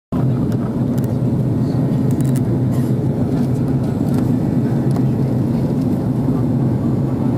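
Steady cabin noise of an Airbus A330 airliner in flight: the low, even rumble of the engines and airflow heard inside the passenger cabin, with a few faint clicks.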